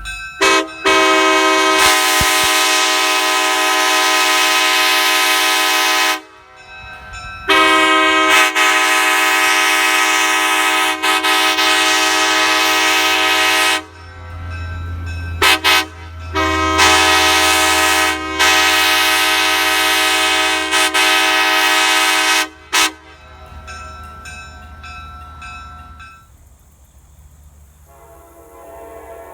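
Nathan Airchime K5LA five-chime locomotive air horn, in the R24 configuration with reversed 2 and 4 bells, blowing its chord. It gives a short toot, two long blasts of about four and six seconds, two quick toots, another long blast and a last toot, then fades to a fainter tone. A low steady rumble runs under the second half.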